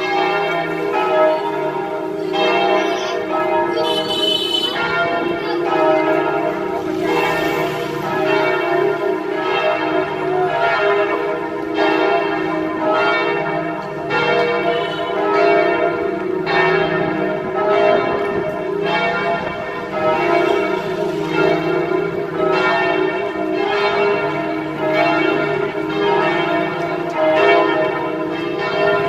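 St. Joseph's Cathedral church bells pealing: a steady run of strikes, roughly one a second, each bell's ringing overlapping the next.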